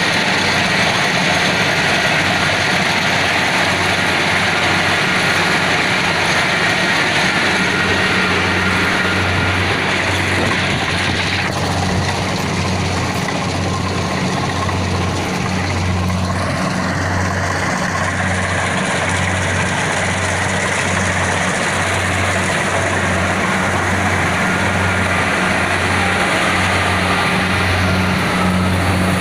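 Kubota DC70PH+ combine harvester running steadily, its diesel engine and machinery giving a loud, even noise over a low hum. From about a third of the way in, the hum pulses roughly once a second.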